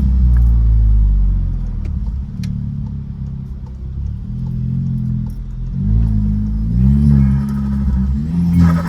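Turbocharged VW Golf engine running and revving up and down under the driver's foot. It ends in a short, loud burst of turbo flutter as the throttle lifts near the end.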